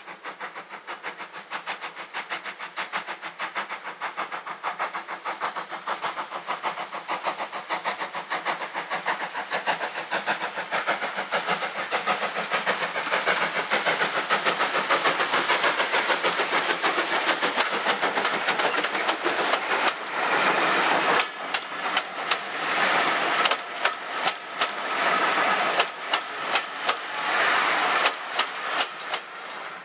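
Caledonian Railway 0-6-0 steam locomotive No. 828 working past with a rapid, even exhaust beat that grows louder as it approaches. From about twenty seconds in, its coaches roll by with the clickety-clack of wheels over rail joints.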